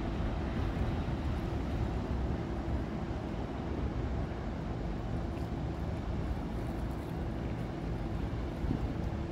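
Steady low drone of a passing inland cargo ship's diesel engine, with a few constant hum tones, mixed with wind noise.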